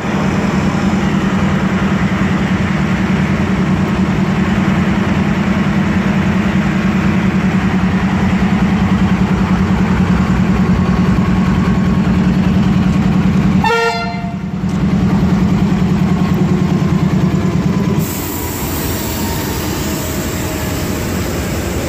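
Diesel locomotive AGE 36009 pulling the Pak Business Express out of the station, its engine a steady low drone, with one short horn blast about fourteen seconds in. Near the end the engine drone drops away, leaving a lighter rolling noise of the passing train.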